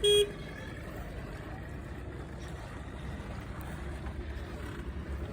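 A horn gives a short, steady blast right at the start. After it a steady low rumble runs on.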